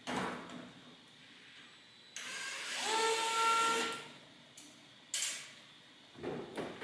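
A screwdriver grinding and scraping against a stubborn screw in an 8-track player, forced by pressing hard. It starts with a knock, then gives a long scrape of about two seconds that breaks into a squeal, followed by shorter scrapes near the end.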